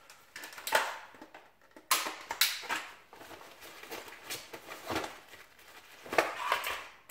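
Gear handling during an airsoft AK magazine change: a magazine being dug out of a pouch on a Smersh load-bearing vest, with fabric rustling and irregular plastic knocks and clatters. The loudest knocks come about two seconds in and again near the end.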